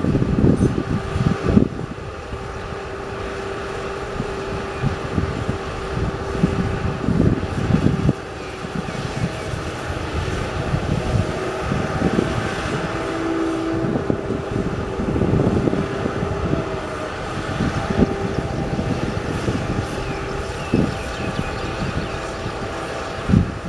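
Heavy machinery engine droning steadily, with irregular low gusts of wind buffeting the microphone.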